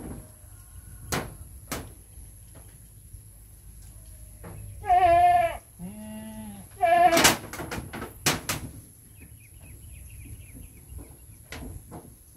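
Goats bleating: three wavering bleats close together about five seconds in, the second lower, the last the loudest. A few sharp knocks come before and after.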